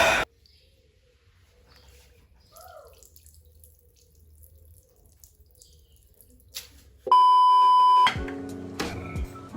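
A steady electronic beep tone about a second long, the loudest thing here, comes about seven seconds in after several seconds of faint room sound. Background music starts right after it.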